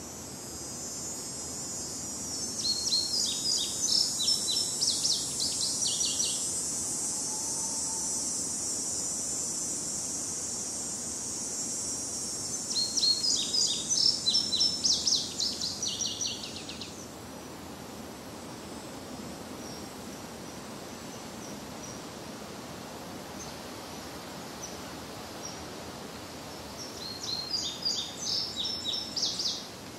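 A songbird singing three times, each song a quick run of high repeated notes lasting three to four seconds. Under the first two songs there is a steady high hiss that stops a little over halfway through.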